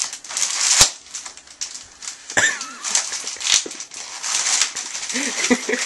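Plastic bubble wrap being crinkled and pulled about by hand, a steady crackling with a few sharp clicks.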